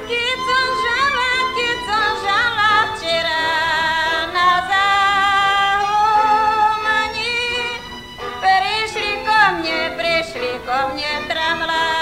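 A woman singing a Slovak folk song solo in a high, ornamented voice, the notes wavering with vibrato and sliding between pitches, with a short breath pause about eight seconds in. It is a late-1950s archival recording.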